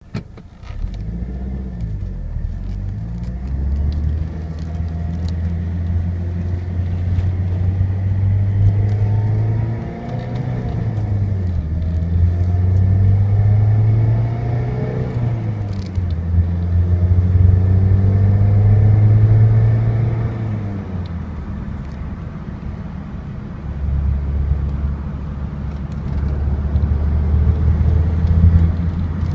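Opel GT engine running, its speed rising and falling several times, with a steady low rumble underneath. The noise is one the owner calls strange and is trying to pin down.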